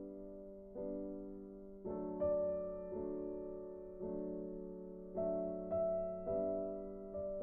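Background music: a soft, slow piano melody, with a new chord struck about every second.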